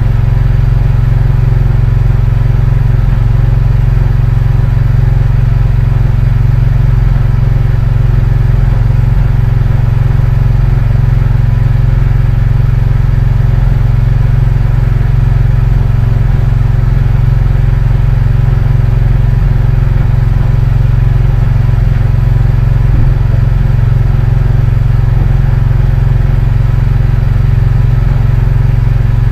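A fishing boat's engine running loudly at a steady, unchanging speed, with a constant low hum.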